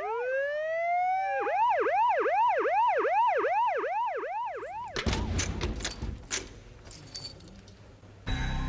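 Emergency vehicle siren in a fast yelp of about three rising-and-falling sweeps a second, switching briefly to one slow rising wail and back to the yelp, then cutting off suddenly about five seconds in. A few clicks and knocks follow, and music begins near the end.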